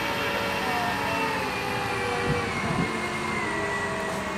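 Mobile crane's engine and hydraulics running steadily as it hoists a suspended load, with a whine that slowly falls in pitch partway through.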